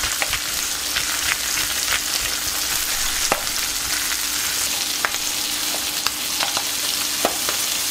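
Lake trout fillets frying in butter in a pan, a steady sizzle with scattered small pops and crackles.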